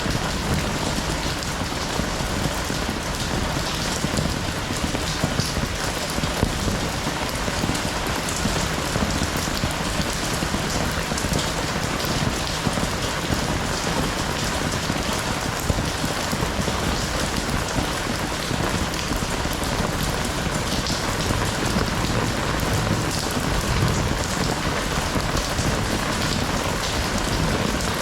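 Heavy rain falling steadily, a dense hiss of drops with many small individual drop ticks throughout.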